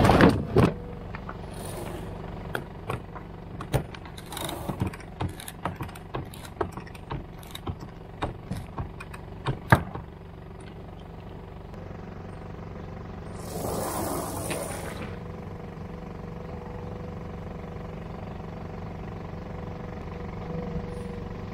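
Small outboard motor running steadily with a low hum. Over the first ten seconds, sharp clicks and knocks come from working the sail and rigging, and about fourteen seconds in there is a short rushing burst.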